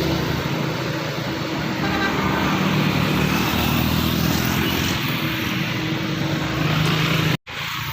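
Road traffic noise as a heavy vehicle runs past close by, with its horn sounding. The sound cuts off abruptly near the end.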